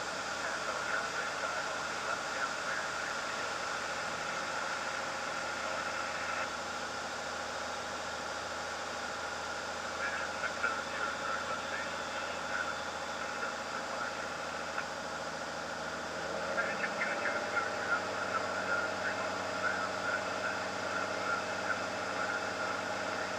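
A Cirrus light airplane's piston engine and propeller drone steadily, heard from inside the cockpit, with a shift in the engine note about two-thirds of the way through. Crackly, muffled bits come and go over the drone.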